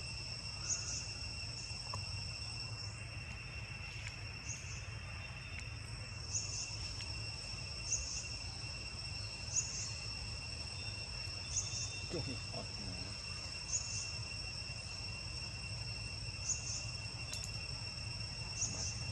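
Forest insects droning steadily: a continuous high-pitched trill with a short, higher chirp repeating every two seconds or so.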